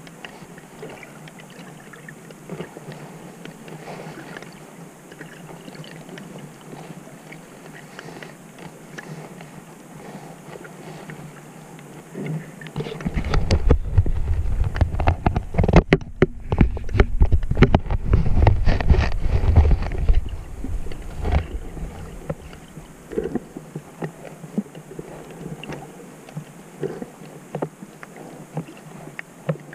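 Underwater sound through an action camera's housing: a steady faint crackle of small clicks. About thirteen seconds in, a loud low rumble and rushing of water against the housing rises, lasts about eight seconds and fades back.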